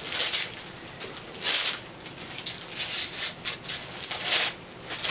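Christmas wrapping paper being torn and crinkled by hand in several short, irregular bursts.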